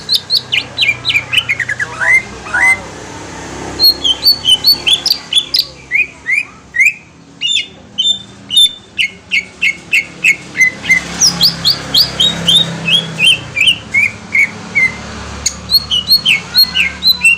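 Cucak ijo (green leafbird) singing: fast runs of short, sharp whistled notes that step down in pitch, phrase after phrase, with a couple of brief pauses.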